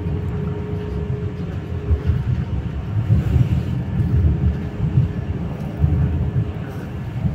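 Steady low rumble of wheels on rails heard from inside a moving electric passenger train, swelling and easing a little, with a faint whine in the first couple of seconds.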